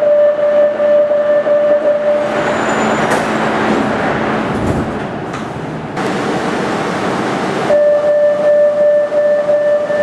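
Barcelona Metro door-closing warning: a steady beep that stops about two and a half seconds in, giving way to the rushing noise of a metro train running. Near the end the same steady warning beep starts again as the doors are about to close.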